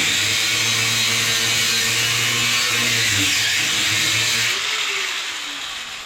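Power cutting tool, most likely an angle grinder with a cut-off wheel, running steadily as it cuts through a weld on steel exhaust tubing, then winding down and fading out about four and a half seconds in.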